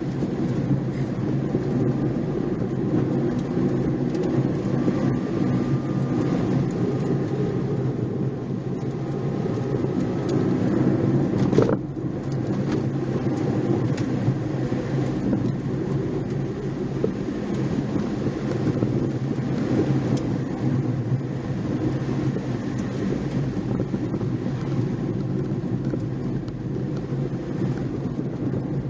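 Nissan March 12SR's 1.2-litre four-cylinder engine pulling, heard from inside the car over heavy tyre and road rumble. The engine rises in pitch, then the revs drop sharply about twelve seconds in.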